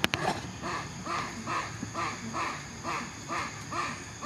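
A bird calling over and over in a steady series of short, evenly spaced notes, about two a second. A sharp click comes right at the start.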